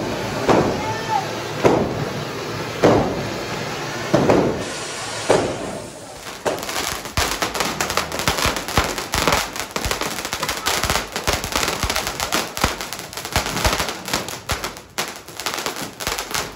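Diwali firecrackers going off: loud single bangs roughly once a second for the first few seconds, then from about six seconds in a dense, rapid crackle of many small pops, like a string of crackers burning through.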